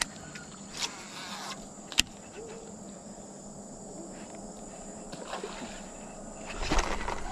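Steady high-pitched insect chirring, crickets, with a few sharp clicks and a louder rustle near the end.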